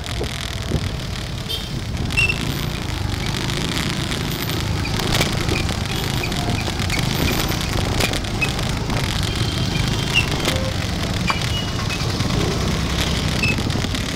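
Steady engine and road rumble of riding a motorbike in slow, busy town traffic, with motorcycles and cars running close by. A few short high chirps come and go over the rumble.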